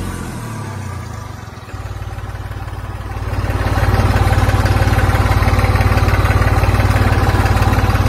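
Tractor engine running with a low, fast, even pulse. It grows louder about two seconds in and again at about three and a half seconds, then holds steady.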